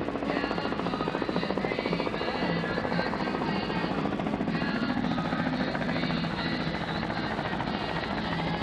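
An engine running steadily, with a fast, even pulsing.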